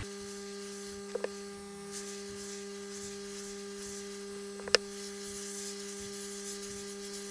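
Steady hum from a hot air rework station blowing on the iPod Touch's aluminium case to warm and soften the screen glue. A couple of light clicks come about a second in, and one sharp click just before five seconds in.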